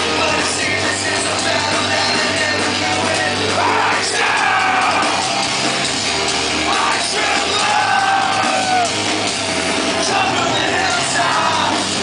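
Loud live post-hardcore rock band playing, with a singer's vocals over the music.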